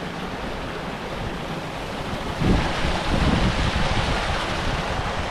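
Steady rush of water falling over a small creek waterfall, about a ten-foot drop. From about halfway through, wind buffets the microphone with uneven low rumbling.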